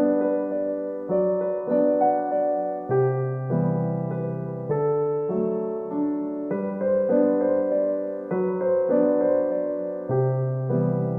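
Gentle background piano music, soft electric-piano chords played at a slow steady pace.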